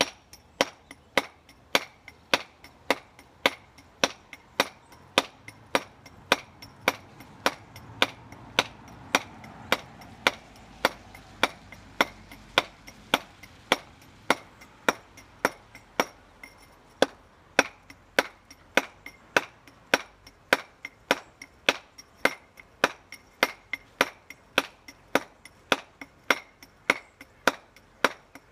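Stonemason's round-headed mallet striking a steel chisel into a sandstone coping stone, dressing its face: a steady run of sharp taps, about two a second.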